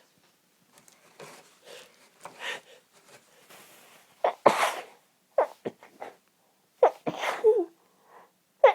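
A woman's sneezing fit: a few short, faint breaths, then about four loud sneezes in quick succession from about four seconds in. She tried to stifle them and couldn't hold them back, so they come out as half-stifled sneezes.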